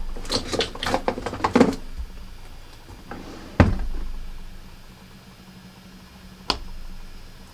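Hands rummaging among makeup brushes and containers: a quick run of clicks and knocks in the first two seconds, a single louder knock about three and a half seconds in, and a sharp click near the end.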